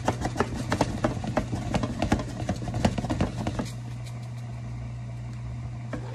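Quick, irregular metal clicks and taps from a covered steel wok and its lid for about three and a half seconds, over a steady low hum that runs on alone after the clicks stop.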